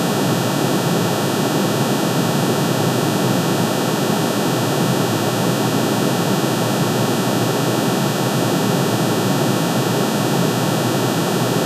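Synthesized drone made by adding together sine waves at the atomic emission lines of aluminium, pitch-shifted into the audible range. It is a dense, steady hiss-like chord of many fixed tones, unchanging throughout.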